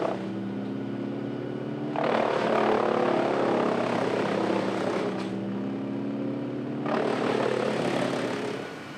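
Tree-removal machinery: an engine running steadily, with two spells of much louder rushing noise over it, one about two seconds in lasting about three seconds and another about seven seconds in.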